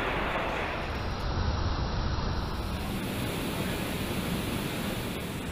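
Steady, even rushing noise of factory ambience, with no distinct knocks, tones or voices.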